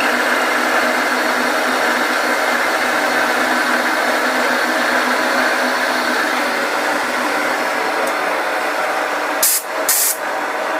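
A machine tool running steadily while machining aluminum. Near the end there are two short hissing spurts about half a second apart.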